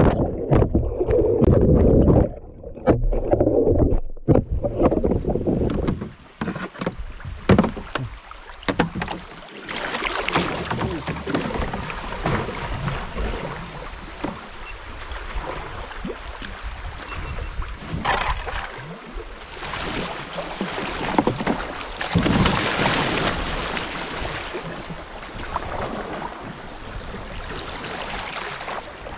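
Submerged action camera dragged through river current on its tether: a loud, muffled underwater rush with knocks for about the first six seconds. Then, above water, river water rushing and splashing against the canoe, with many small clicks and knocks.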